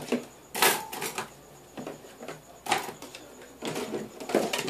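A series of irregular knocks and clatters of household items being handled and set down, the loudest about half a second in.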